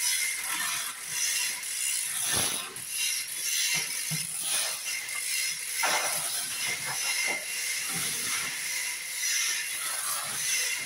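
Manual chain hoist being hauled by its hand chain: the chain rattles and the ratchet pawl clicks in irregular runs, with a few sharper metallic knocks over a steady hiss.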